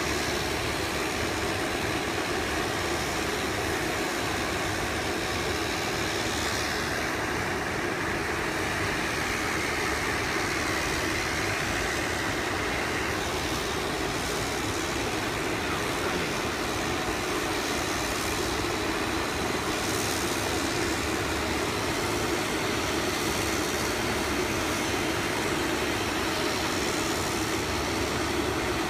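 Small turboprop airplane engines running as a steady, unbroken drone.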